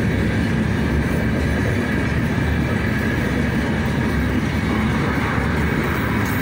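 Freight train of open gondola wagons rolling past on the adjacent track: a steady, loud rumble and rattle of wheels on rail with no break or change.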